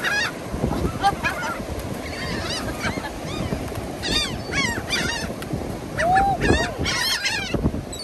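A flock of seagulls calling over one another, many short, high cries overlapping as they crowd in to be fed.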